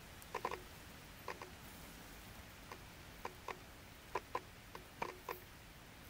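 Raindrops tapping on the car at irregular moments: about a dozen short, light ticks, some in quick pairs or threes, over a faint hiss.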